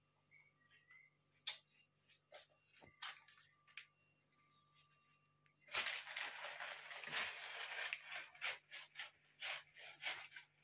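Clear plastic bag crinkling and rustling in a toddler's hands, starting about six seconds in; before that only a few faint ticks and rustles.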